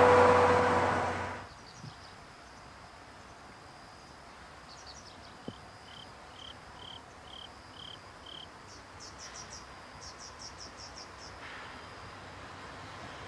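Passenger coaches of a steam-hauled train rolling past, cut off abruptly about a second and a half in. Then quiet rural background with a steady high insect trill, a run of about seven evenly spaced chirps, and quick high chirping near the end.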